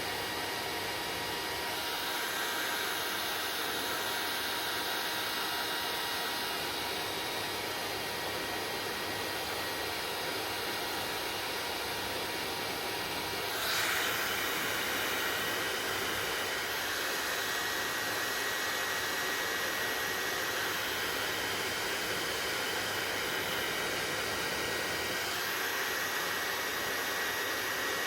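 Hair dryer running steadily: a continuous blowing rush with a faint whine. About halfway through, the level rises briefly and the pitch of the whine shifts, then the dryer runs on steadily.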